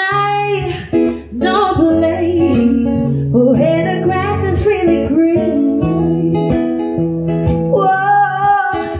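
Singing with acoustic guitar accompaniment: a sung melody that bends and slides in pitch over guitar chords.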